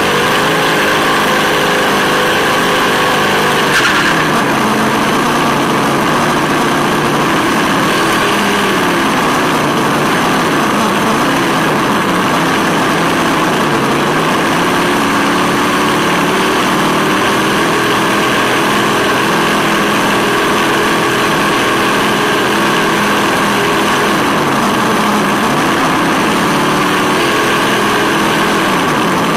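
Simulated V8 engine sound from an ESS-One sound unit played through a speaker on an electric 1/10 scale RC jeep, its pitch rising and falling with the throttle, over a steady high whine.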